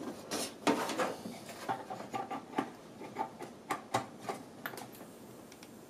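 A dozen or so light clicks and taps spread over the first five seconds as the bare LCD monitor panel is handled and its power cable is plugged in.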